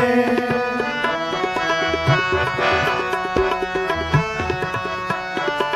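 Harmonium and tabla playing an instrumental interlude between sung lines of a Sikh kirtan shabad: the harmonium holds a sustained melody while the tabla keeps a steady beat, its bass drum strokes bending in pitch.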